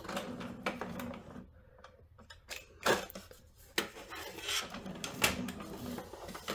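Hands working inside the front of an Epson EcoTank ET-8550 printer: scattered plastic clicks and knocks with rubbing, as a missed piece of protective packing foam is pulled out.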